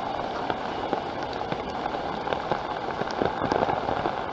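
Hurricane rain pattering on a surface: a steady hiss of rain with many small, scattered drop ticks.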